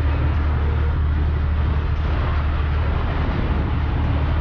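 Steady drone of a motorboat's engine under way, with a continuous rush of water and wind.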